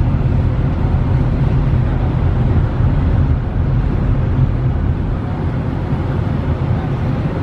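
Steady low rumble of a ferry's engines heard on deck while under way, with an even hiss of wind and water over it.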